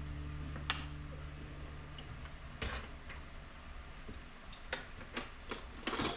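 Scattered light clicks and small knocks of a small plastic tool case being handled and set into a tool-chest drawer, a few separate taps and then a quick cluster near the end.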